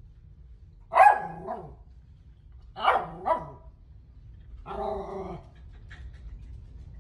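West Highland white terrier barking: two quick barks about a second in, two more about three seconds in, then a longer, drawn-out bark about five seconds in.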